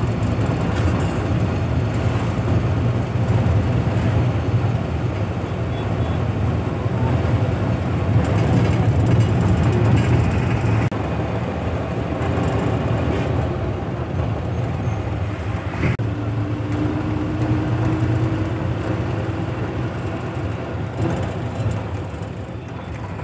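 Bus engine and road noise heard from inside the cabin while the bus drives along: a steady low drone.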